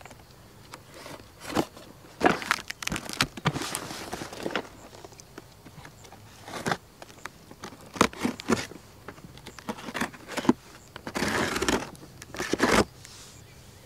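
Folding pocket knife slicing the packing tape on a cardboard box, with scraping, clicks and short rasps. Near the end, a longer, louder rustle of the cardboard flaps as the box is opened.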